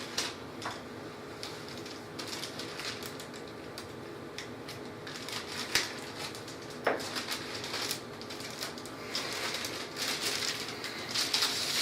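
Anti-static shielding bag crinkling and rustling as it is opened around a replacement laptop screen, with scattered sharp crackles.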